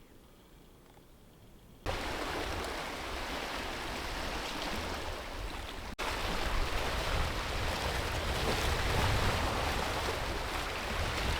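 Waves washing on the shore with wind buffeting the microphone, cutting in suddenly about two seconds in after near quiet, with a brief break about six seconds in.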